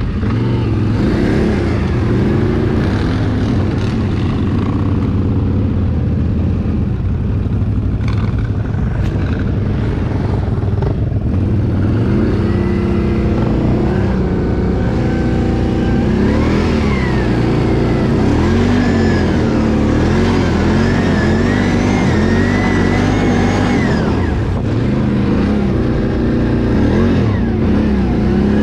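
Can-Am ATV engine running under way, its pitch rising and falling as the throttle is opened and eased off. From about halfway in, a higher whine rises and falls along with the engine speed.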